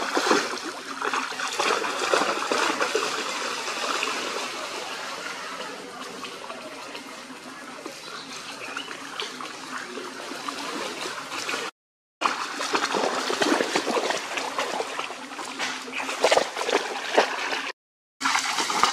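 Dogs splashing and wading through shallow muddy floodwater, with water trickling and running. The sound drops out briefly twice, near the middle and near the end.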